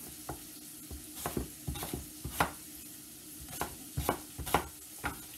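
Chef's knife dicing an apple on a wooden cutting board: sharp knocks of the blade hitting the board, irregularly spaced and in short runs of two or three quick chops.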